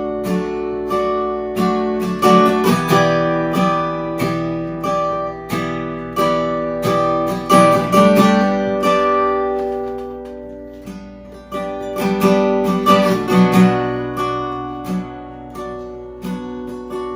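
Instrumental worship music: strummed acoustic guitar chords ringing, with no singing. It fades down to its quietest a little past halfway, then the strumming picks up again.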